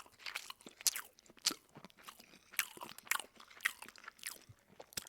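A person chewing food with the mouth open, close to the microphone: short, sharp mouth clicks and crunches coming irregularly, about two or three a second.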